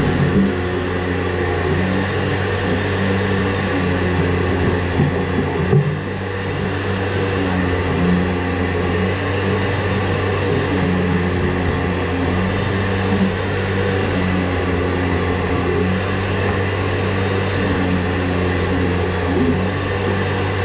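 A motor-driven machine running steadily with a low, even hum, with a few brief knocks about a second in and again around five to six seconds in.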